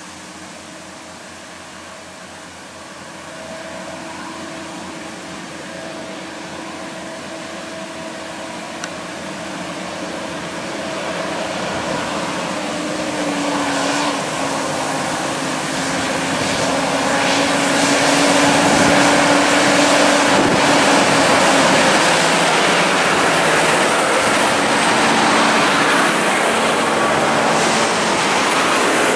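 Heavy diesel trucks of an oversize-load convoy labouring up a hill toward the listener, with steady engine tones and tyre noise that grow steadily louder as they approach, then hold loud as they pass close by. Wind noise on the microphone is mixed in.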